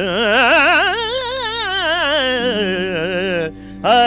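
Male Carnatic vocalist singing a long ornamented phrase, his pitch swinging quickly up and down in wide gamaka oscillations over a steady drone. The phrase ends about three and a half seconds in and a short rising note follows near the end.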